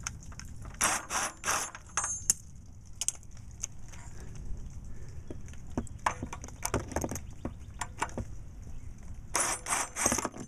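Small drill spinning a socket in short bursts, loosening the nuts on exhaust pipe clamps, with metal clicks and clinks between. The bursts come in three groups: about a second in, around six to seven seconds in, and near the end.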